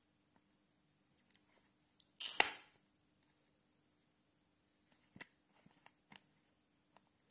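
White plastic screw cap of a Müllermilch bottle being twisted open by hand: a few small plastic clicks, with one short, louder crackle about two seconds in.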